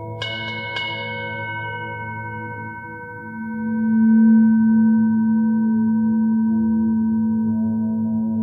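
Ambient soundtrack music of ringing metal tones like struck bowls or bells. Two strikes near the start ring out and fade over a couple of seconds over a steady drone, then a low tone swells about three seconds in and holds.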